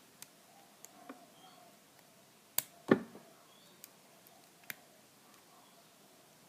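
Scattered small metallic clicks and taps of lock-picking tools working in an all-brass American Lock round padlock, two sharper clicks about two and a half to three seconds in being the loudest.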